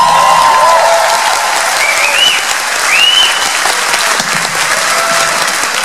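Audience applauding and cheering as a song ends, with a few shrill whoops about two and three seconds in.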